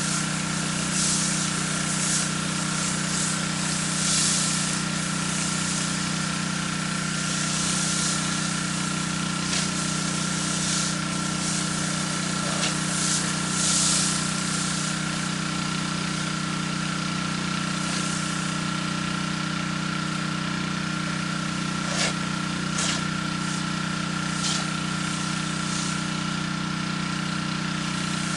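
Gas pressure washer engine running steadily with a constant whine, while high-pressure water sprays onto concrete in hissing surges every few seconds as dirty water is rinsed off the slab. A couple of sharp clicks come about three-quarters of the way through.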